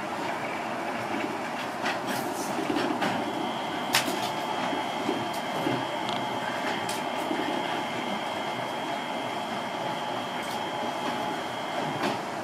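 Running noise heard from inside a Seibu 8500 series rubber-tyred guided-transit car on the move, a steady rumble with a few sharp clicks. A steady high whine comes in about three seconds in and stops just before the end.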